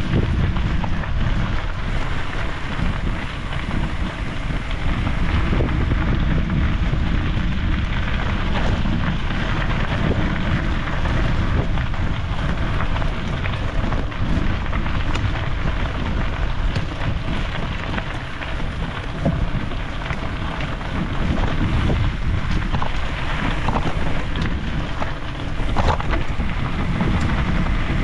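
Steady wind buffeting and rushing over the microphone of a camera on a moving bicycle, with tyre and trail noise and scattered small clicks underneath.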